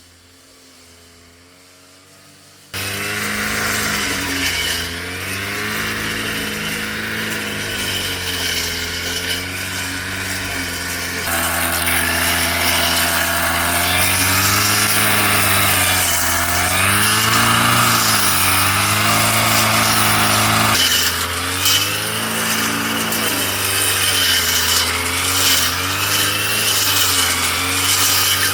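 Brush cutter engine running hard while cutting weeds, its pitch rising and falling as the load changes. It is faint for the first few seconds, then suddenly loud.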